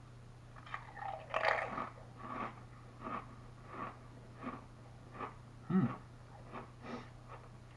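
A person chewing crunchy stacked potato crisps (Lay's STAX Flamin' Hot) with the mouth close to the microphone, crunches coming about twice a second and slowing later. There is a short hum from the eater a little before six seconds in.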